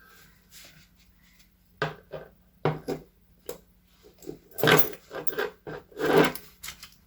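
Small metal lock parts being handled during rekeying: a run of sharp clicks and taps as pins and the lock plug are worked by hand, with two longer scraping rubs, the louder ones about halfway through and near the end.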